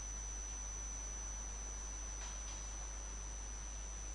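Steady electrical noise of the recording chain: a thin high whine, a low hum and an even hiss. Two faint clicks come a little past the middle.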